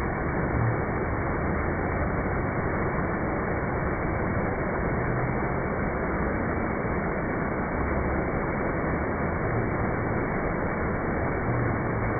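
Water rushing steadily down a stepped concrete cascade into a tiled basin, an even rush with no break.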